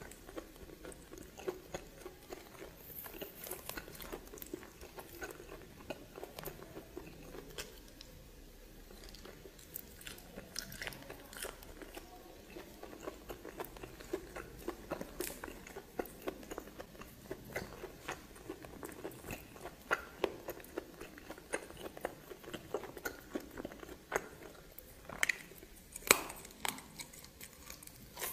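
A person chewing and biting food, with irregular wet mouth clicks and smacks and occasional crunches; a few louder smacks come near the end.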